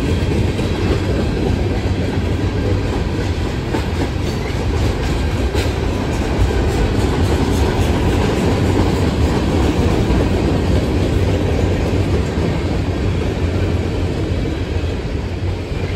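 Mixed freight train's cars (tank cars, hoppers, refrigerated boxcars) rolling past, steel wheels running on the rails with a steady, even noise.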